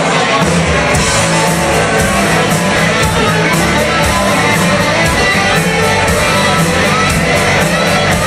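Live rock covers band playing, guitar to the fore, loud and steady with a regular beat.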